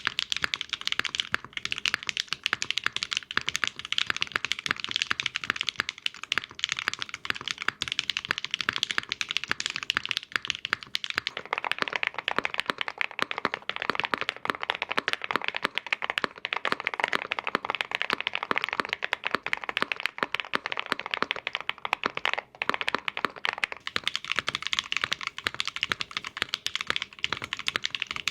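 Fast continuous typing on a mechanical keyboard in a side-by-side sound test of GMK ABS keycaps against KeyTok PBT keycaps. It begins with a higher-pitched clack; about eleven seconds in the strokes turn deeper and fuller, the thocky sound of the KeyTok set on a foam-filled board. After a brief pause near the end it returns to the higher clack.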